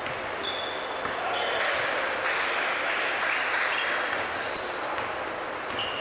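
A basketball being dribbled on a hardwood gym floor, with short high squeaks of sneakers scattered throughout.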